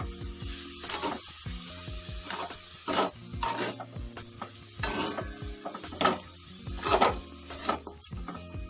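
Metal spoon scraping and stirring grated coconut with sugar and jaggery in a metal kadhai, in strokes roughly once a second, as the filling cooks.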